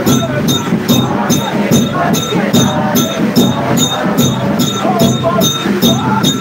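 Church worship music: voices singing over a steady, sharp percussion beat of about three strokes a second.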